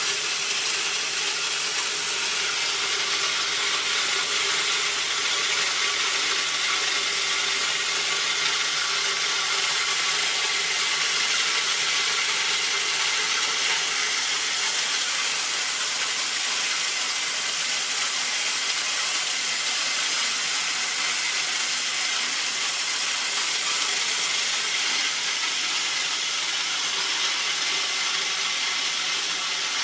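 A180 corn mill, its 180 mm grinding stones driven by a 2.2 kW electric motor, running steadily while cracking corn kernels: an even, unbroken rushing grind.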